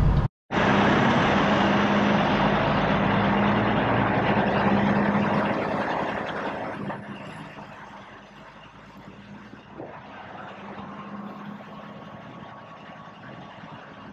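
Semi-truck's diesel engine running as the tractor-trailer moves slowly, with a steady low hum. A loud rushing noise covers it for the first several seconds, then fades to leave the quieter engine.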